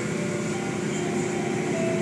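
Automatic car wash heard from inside the car: water spray and foam pelting the car and the cloth mitter strips, over the steady hum of the wash machinery, with a few faint whining tones.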